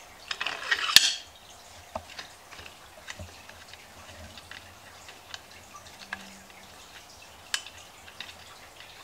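Hands handling metal parts of a drill press table: a short scraping rattle ending in a sharp click about a second in, then scattered light clicks and taps, one sharper near the end.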